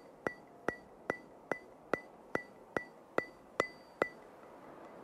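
Evenly spaced ticks from a soundtrack, about two and a half a second, each with a short ringing tone. The ticks stop about four seconds in.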